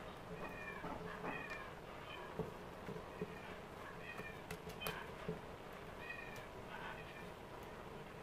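A cat meowing repeatedly in short, high, slightly falling calls, about one a second. A few light clicks from the planer's parts being handled come about halfway through.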